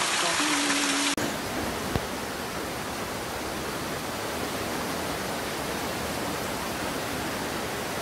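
Water splashing down a rock face in a small waterfall, then, after a sudden cut about a second in, a steady even hiss.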